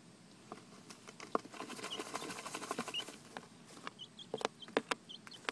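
Young chickens dust bathing in sand: a rapid, scratchy patter of sand and feathers for over a second, starting about a second and a half in, with short high peeps and a few sharp clicks near the end.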